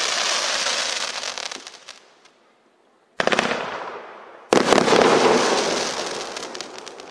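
A 40-shot, 500-gram fireworks cake firing. A shot's crackling, hissing shower fades out about two seconds in, then after a short quiet spell two more shots go off with sharp reports about a second apart. Each is followed by dense crackling that slowly dies away.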